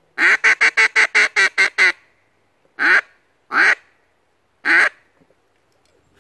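Handheld duck call blown in quacks: a fast run of about nine short quacks in under two seconds, then three single, longer quacks about a second apart. It is blown by a beginner who says he doesn't know how to blow it.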